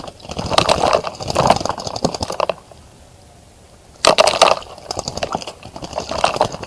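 A bird bathing in a bird bath, splashing and fluttering its wings in the shallow water in three bouts with a short pause between them.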